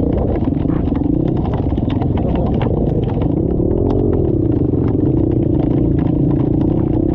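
Enduro motorcycle engine running, its pitch rising and falling with the throttle, over many short clattering knocks.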